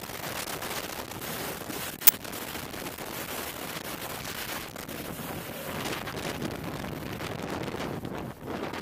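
Hovering UH-60 Black Hawk helicopter overhead, its rotor downwash rushing over the microphone as steady wind noise, with one sharp click about two seconds in.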